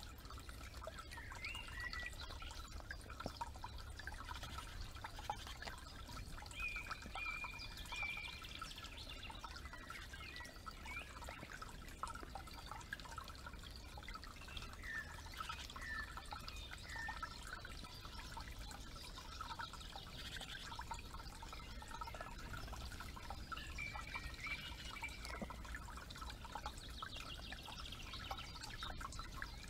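Shallow forest creek trickling steadily, with small birds singing short chirping phrases on and off throughout, over a low steady rumble.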